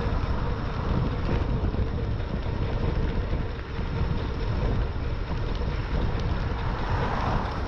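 Steady wind rumble on the action camera's microphone while riding an e-bike along the road, heaviest in the low range, with no distinct events.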